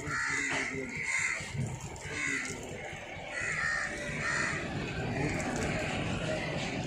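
Crows cawing over and over, about one call a second. Under them, water from a plastic bottle pours and splashes onto hands being rubbed together.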